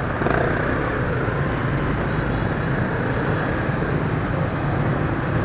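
Steady run of several motorcycle and scooter engines with road noise, heard from a scooter riding slowly in a dense pack of motorcycles.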